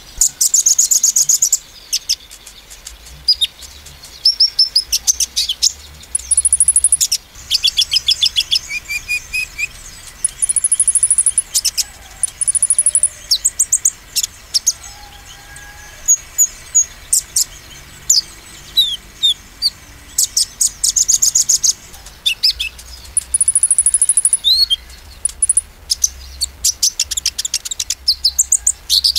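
Male Van Hasselt's sunbird (kolibri ninja) singing its rapid 'nembak' song: high, thin chirps mixed with fast, very high trills, in bursts of a second or two with short gaps.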